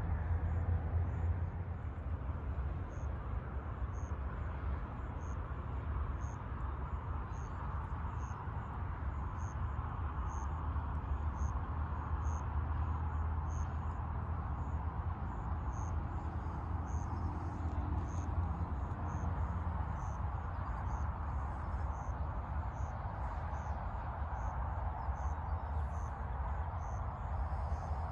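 Steady hum of distant road traffic that swells and eases as vehicles pass, with an insect chirping in a steady high-pitched rhythm, about three chirps every two seconds.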